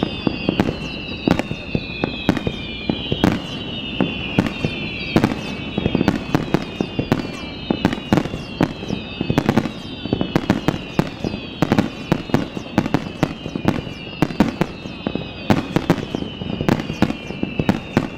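Aerial fireworks show: a rapid barrage of bursting shells, booms and cracks often several a second, over a run of high whistles that fall in pitch one after another.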